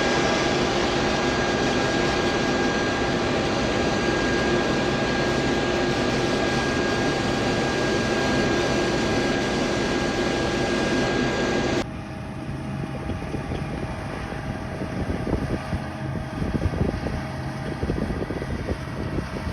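Combine harvester running steadily, a dense mechanical drone with a high steady whine over it. About twelve seconds in it cuts off abruptly to quieter, gusting wind on the microphone with a faint steady hum.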